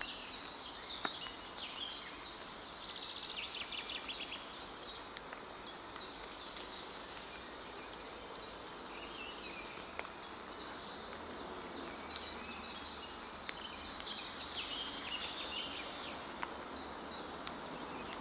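Songbirds singing, many short high chirps with a rapid trill about three seconds in, over a steady outdoor background hiss.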